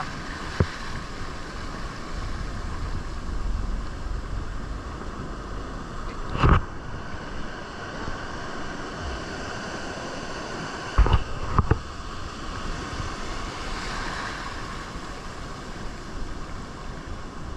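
Sea waves washing against the shore with a steady rushing sound and some wind on the microphone. A few short, sharp knocks stand out: the loudest is about six and a half seconds in, and three come close together around eleven seconds.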